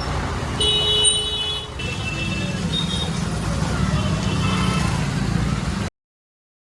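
Heavy diesel machinery engine running steadily, with a brief high-pitched whine about a second in. The sound cuts off suddenly near the end.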